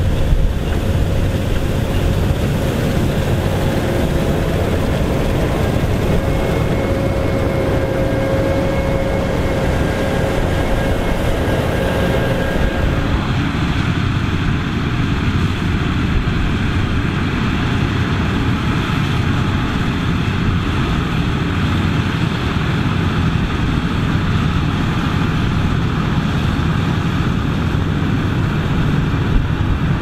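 Massey Ferguson 9380 Delta combine harvester running steadily while harvesting, with a steady whine over the engine. About 13 seconds in, the sound changes to the combine unloading into a trailer with a tractor running alongside.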